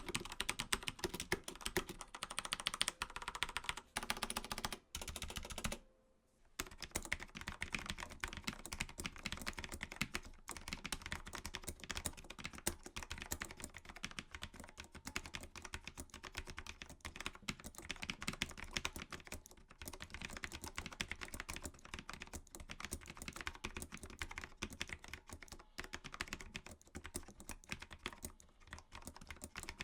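Rapid typing on a mechanical keyboard with linear switches: a dense, steady stream of key clacks, with a brief pause about six seconds in.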